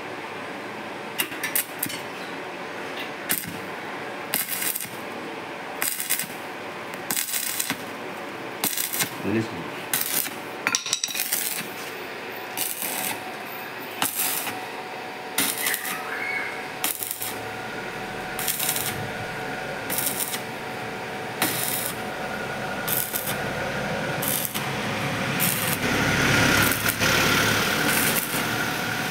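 Stick arc welding on a scooter's steel front-mudguard bracket: short bursts of arc noise come about every second, then from about halfway a steadier, louder stretch of welding that builds toward the end.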